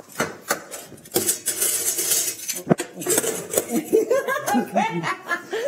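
Clip-on lavalier microphone being covered and handled by fingers: a run of knocks, clicks and rubbing right on the mic, followed by laughter in the second half.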